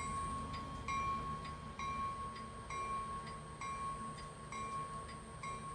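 Diesel locomotive bell sound effect from an ESU HO sound decoder, played through a small Bluetooth speaker inside a model boxcar. It rings steadily, about once a second.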